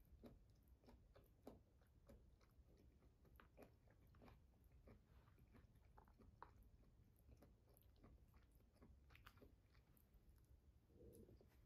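Faint eating sounds: quiet chewing, with light, irregular clicks of wooden chopsticks against a takeout food container.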